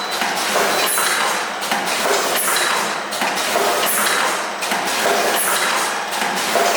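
Automatic dumpling-making machine running, a steady mechanical clatter with knocks and clinks and a cycle that repeats about every one and a half seconds.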